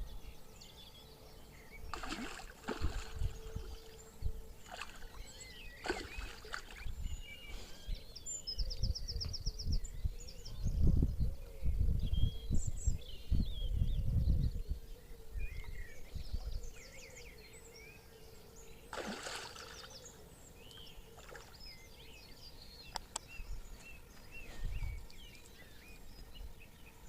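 Small birds chirping and trilling, with low rumbling buffets of wind or handling on the microphone in the middle and a few brief rustles or knocks.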